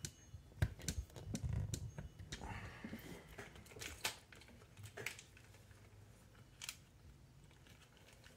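Clicks, taps and rustling of a small plastic RC buggy chassis and a screwdriver being handled. There are sharp clicks in the first second, a short stretch of rustling clatter, then a few scattered taps.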